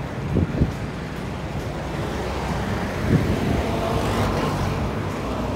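Road traffic on a multi-lane highway: a steady rumble of cars and vans, with a few short knocks near the start and about three seconds in.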